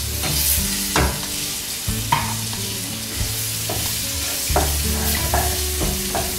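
Diced onion, carrot, celery and green chilies sizzling with flour in bacon grease in a stainless steel stockpot, with a few short clicks and scrapes from the vegetables being worked in the pot.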